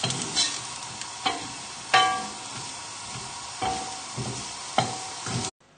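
Diced chorizo, shallots and garlic sizzling gently in a frying pan as the pan comes up to heat, while a wooden spoon stirs them and scrapes the pan every second or so. The sound cuts off suddenly near the end.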